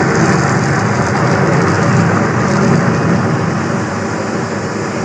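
Mirage volcano attraction erupting: a loud, steady rumbling roar that eases off gradually toward the end.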